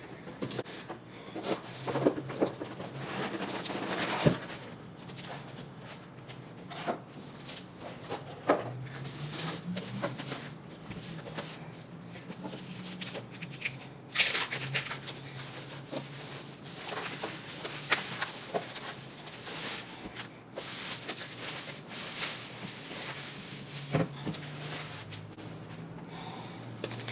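Cardboard box and plastic packaging being handled: irregular rustling, rubbing and scattered knocks as a tightly packed machine is worked out of its box, with a faint low hum underneath.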